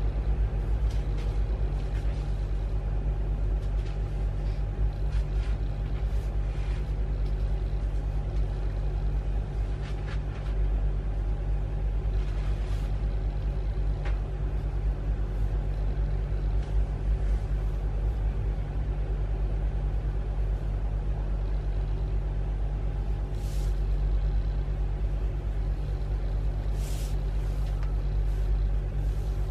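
Steady low hum and rumble of a running machine, unchanging throughout, with a few faint clicks in the last several seconds.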